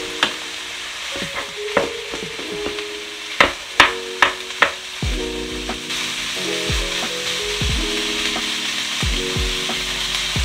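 Minced meat with diced onion, carrot and black olives sizzling in a frying pan as a wooden spoon stirs and breaks it up. A few sharp knocks of the spoon against the pan come in the middle.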